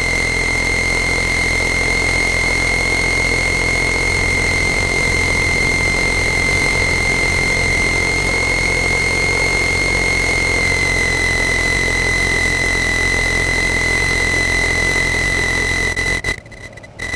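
Cessna 162 Skycatcher's Continental O-200 four-cylinder engine and propeller running steadily at idle, a constant drone with a steady high-pitched whine over it. The sound cuts out in a few brief gaps near the end.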